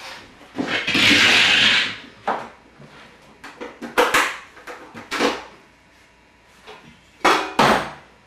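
Household items being moved and set down on a countertop while a portable electric stove is put in place. About a second in there is a longer scraping slide, then several separate knocks and clunks.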